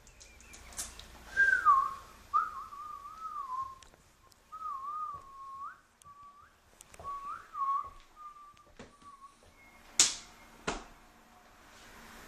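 A person whistling a wandering tune in short phrases, one pure note sliding up and down with brief breaks. It is followed by two sharp knocks near the end.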